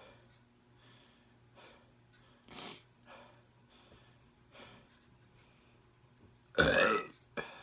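A man breathing hard through an open mouth against the burn of very spicy fire noodles. There are faint short breaths every second or so, then one much louder breath out about six and a half seconds in and a short one just after.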